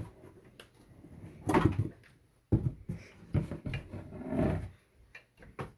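A scatter of knocks and clicks and short noisy stretches of handling, like a door or drawer being worked and things being moved in a small room.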